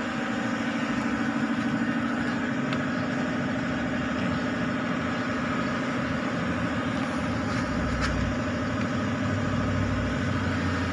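Car engine idling steadily, a constant even hum with no change in speed.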